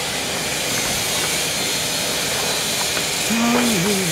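Steady hiss of running workshop machinery. A short voice sound joins about three seconds in.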